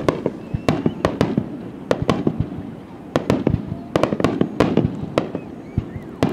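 Starmine fireworks barrage: a quick, uneven string of aerial shell bursts, sharp bangs and cracks following one another several times a second.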